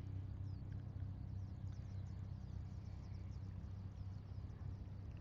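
Many faint, quick descending chirps of small birds over a steady low outdoor rumble.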